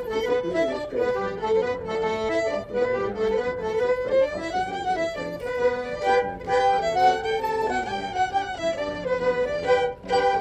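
Instrumental traditional Manx folk dance tune playing continuously, a steady melody line for the dance.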